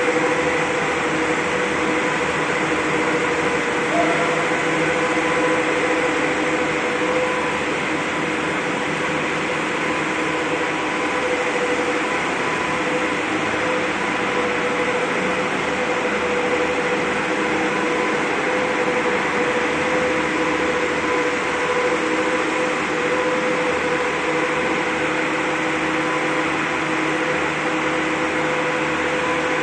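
Weichai WP13D440E300 inline-six diesel engine of a 400 kW/500 kVA generator set running at a constant speed, a loud steady drone with a fixed humming tone held throughout.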